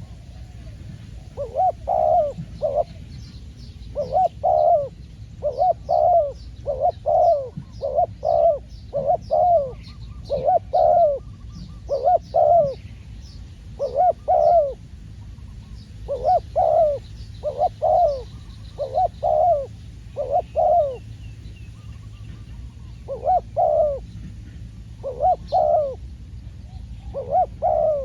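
Spotted dove cooing over and over, short phrases of two or three coos repeated about once a second with a few brief pauses. Small birds chirp faintly behind it.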